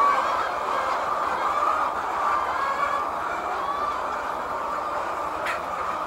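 A large flock of hens clucking and calling together in a steady, dense chatter.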